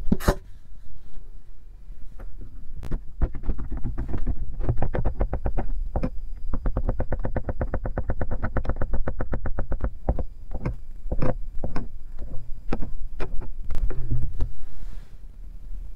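Blue plastic spoon stirring dish soap into water in a small glass bowl: a fast run of clicks and taps against the glass, thickest in the middle and thinning out to scattered taps near the end.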